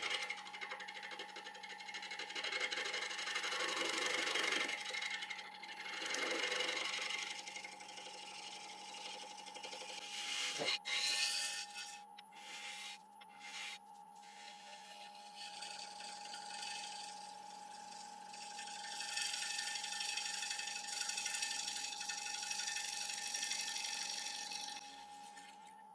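Bowl gouge cutting a spinning apple wood blank on a wood lathe, roughing it round: hissing cuts come and go in several spells over the steady hum of the lathe, with one sharp knock about ten seconds in.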